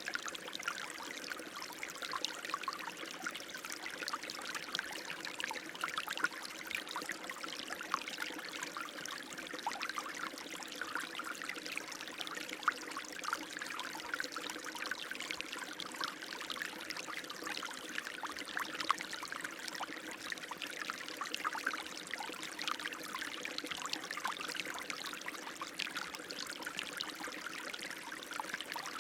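Running water flowing steadily, with many small irregular splashes.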